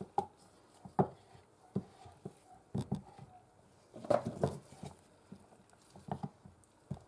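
Irregular knocks and taps of a spatula against plastic measuring jugs of thick soap batter, and of the jugs being handled on a tabletop, with a louder cluster of knocks about four seconds in.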